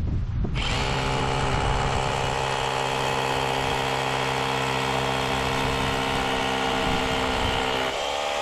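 Cordless drill boring a hole into a masonry wall, its motor starting about half a second in and running at a steady speed, with its note shifting near the end.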